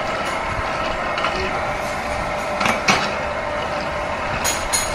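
Anaconda-type wire stripping machine running steadily, stripping PVC insulation off cable. There are two sharp clicks about three seconds in and two more near the end.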